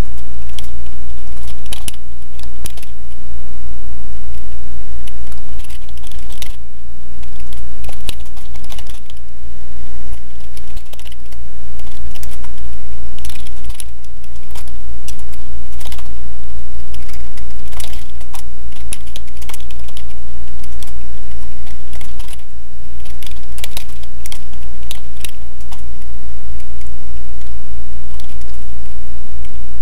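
Computer keyboard typing: irregular keystroke clicks, in quick runs with short pauses, over a steady low hum.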